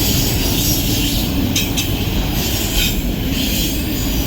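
Empty autorack freight cars rolling past on steel rails, a steady, loud rumble of wheels and car bodies. Brief high-pitched wheel squeals about a second and a half in and again near three seconds.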